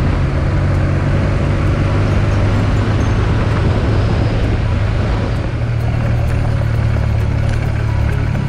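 Motorcycle engine running steadily under way, a low even hum mixed with rushing wind and road noise. A short dip in level about five and a half seconds in; after it, light ticking, as the bike rolls on gravel.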